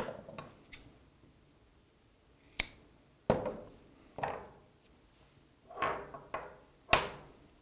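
Scotch double-sided outdoor mounting tape being handled: strips pulled off the roll and the red backing peeled away, heard as about seven short tearing sounds and clicks, each dying away within half a second.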